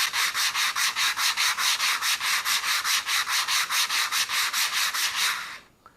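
150-grit sandpaper rubbed rapidly back and forth over a laser-cut piece, about five strokes a second, stopping about five and a half seconds in. The sanding takes off the smoke residue the laser leaves along the cut edges.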